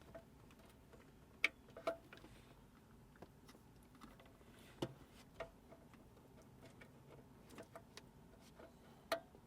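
Scattered light clicks and taps of plastic wiring connectors being handled and fitted behind a car dashboard. The loudest come about a second and a half in and again near the end.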